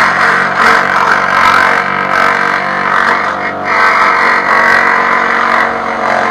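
Benchtop scroll saw running, its reciprocating blade cutting through a Kydex holster shell: a steady motor hum under a cutting noise that swells and eases as the sheet is fed into the blade.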